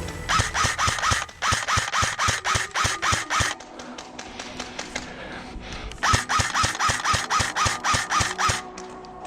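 Airsoft gun firing rapid shots, about six a second, in two strings with a quieter pause between.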